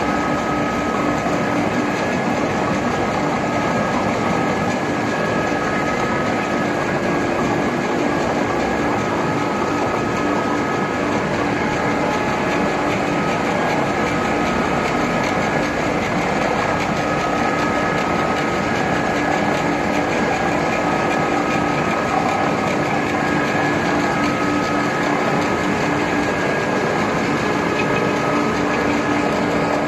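Wood pellet production line running steadily: an unbroken mechanical noise with a few steady humming tones held throughout.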